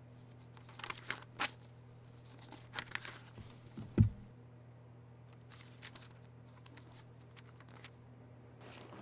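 Papers and a spiral notebook being gathered and handled on a wooden desk: scattered rustling and small clicks, with one louder knock about four seconds in. Fainter rustling follows as things are packed into a bag.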